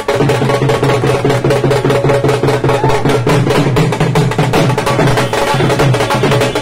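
Dhol, a two-headed barrel drum, played in a fast, steady rhythm of dense strokes.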